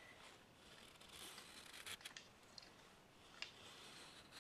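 Knife blade shaving thin curls off a wooden stick to carve a feather stick: faint, repeated scraping strokes with a few sharp clicks.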